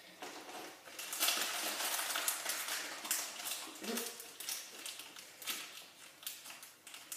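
Blind-pack packaging crinkling and rustling in the hands, loudest for a couple of seconds about a second in, then scattered small clicks of plastic mini-figure pieces being handled.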